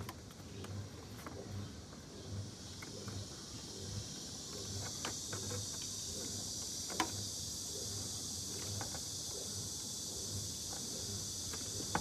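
Steady high-pitched insect chirring in the background, growing stronger a few seconds in, with a few faint sharp clicks as the glue bottle is handled against the unit.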